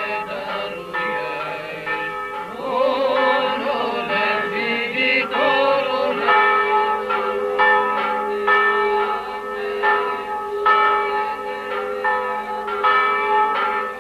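Church bells ringing, struck over and over about once or twice a second, each strike leaving a ringing hum that overlaps the next. Between about three and six seconds in, wavering chant-like singing is heard over the bells.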